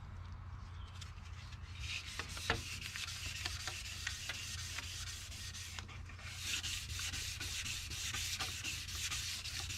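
400-grit wet sandpaper rubbing back and forth over stainless steel trim, a scratchy hiss with a few small clicks, sanding light scratches out of the metal.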